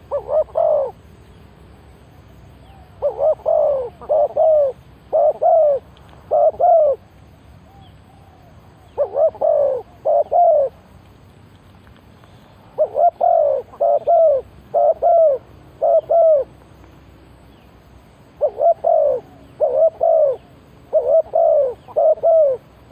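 Spotted dove cooing. It repeats phrases of three or four low, arching coos, with a short pause between phrases.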